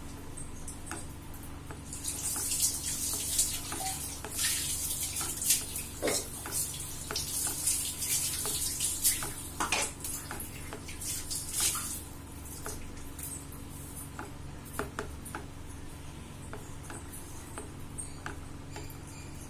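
Silicone spatula stirring and scraping a wet, milky ground-almond paste around a non-stick pan, with sloshing and scraping sounds that are busiest in the first half and softer after. A steady low hum runs underneath.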